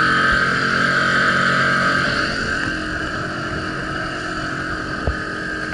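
Tohatsu outboard motor running at speed, pushing the dinghy along. It gets noticeably quieter about two seconds in, and there is a single sharp knock near the end.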